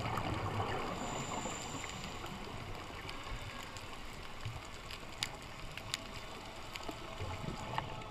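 Underwater ambience picked up by a camera on a dive: a steady, muffled water hiss with a few sharp clicks in the second half.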